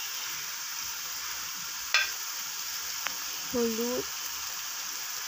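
Chopped onions and spice pastes sizzling steadily in hot oil in a cooking pot, with a sharp tap about two seconds in.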